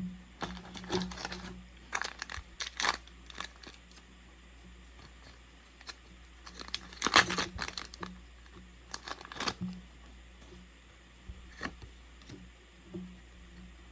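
Foil trading-card booster pack being torn open and its wrapper crinkled, in several short bursts of tearing and crackling, the loudest about seven seconds in.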